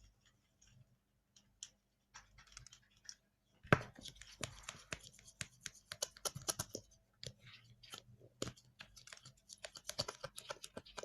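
A utensil stirring glue slime mixture in a container, with irregular clicks and scrapes and one sharper knock about four seconds in.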